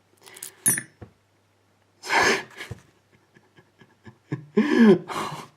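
A person breathing out hard about two seconds in, then a run of faint light clicks, then a short wordless vocal sound near the end: a frustrated reaction to a reassembled lock cylinder that will not work.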